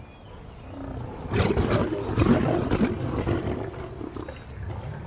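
Lions fighting, growling and snarling, starting about a second and a half in. The sound is loudest for the next couple of seconds, then goes on more weakly.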